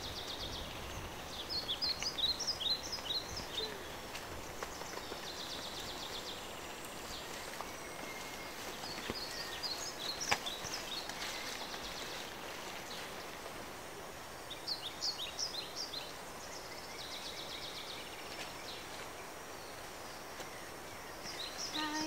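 Forest birds singing in recurring bursts of quick, sharp high notes about every six seconds, with short buzzy trills between them, over a steady background hiss; a single sharp tap about ten seconds in.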